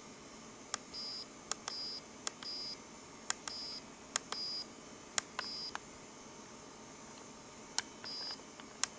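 Push-buttons on an assembled VFD digital clock kit clicking as the clock is set. Most presses are answered by a short, high-pitched beep from the clock's buzzer, seven beeps in all, with a pause of about two seconds before the last one.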